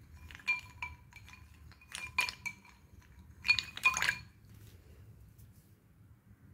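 Glass bowl clinking as it is handled, knocked by fingers and the soaked pieces inside it. There are three groups of sharp clinks, each leaving a brief ringing tone, and the loudest group comes a little past halfway.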